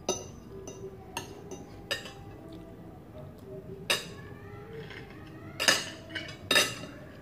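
Metal spoon and fork clinking and scraping on a ceramic plate of rice, about six sharp clinks spread a second or so apart, the loudest two near the end.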